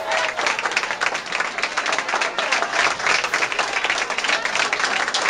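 A crowd of people clapping steadily in sustained applause, a dense patter of many hands.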